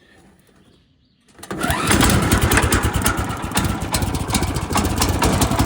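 Kohler gas engine on a Woodland Mills HM126 sawmill being pull-started: quiet at first, then the engine catches about a second and a half in and keeps running with a fast, steady beat.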